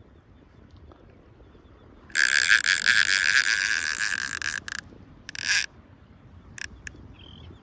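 Fishing reel drag buzzing as a hooked red drum pulls line off. One long run of about two and a half seconds a couple of seconds in, then a shorter burst and two brief ticks.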